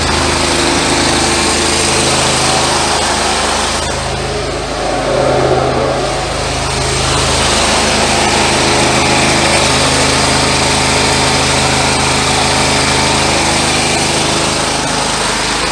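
Engine-driven high-pressure drain jetter running steadily under load while its hose jets out a grease-clogged sink drain pipe, with a slight dip in level a few seconds in.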